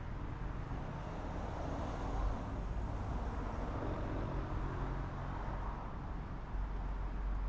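Steady road and wind noise from a car driving at speed: a low tyre rumble under a hiss of rushing air, swelling a little about two seconds in.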